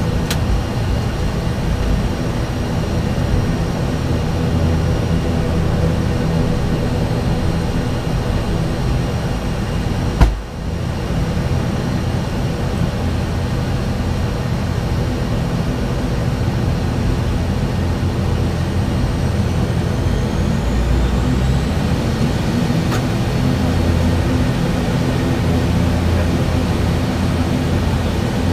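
Steady drone of an ATR's Pratt & Whitney PW127 turboprop engines and propellers idling on the ground, heard inside the cockpit. The number two condition lever has just gone to auto and its propeller is in low pitch. A single sharp knock sounds about ten seconds in.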